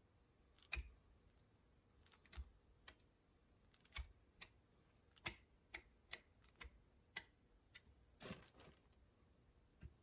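Faint, irregular clicks and light taps from spreading fast-setting plastic repair filler onto a steering wheel by hand, about fifteen in all, with a brief rustle a little past eight seconds in.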